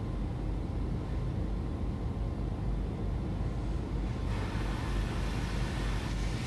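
Automatic car wash heard from inside the car: a steady low rumble of the wash machinery, with a hiss of water spray on the car growing louder about four seconds in.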